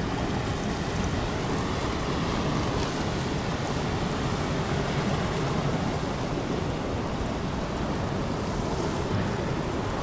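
Steady wash of sea surf breaking on the rocks, with wind noise on the microphone.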